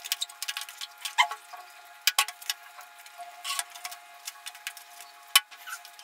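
Forks clicking and scraping against aluminium foil trays while two people eat baked macaroni, with irregular sharp clicks and a few louder knocks about two seconds in and again near the end.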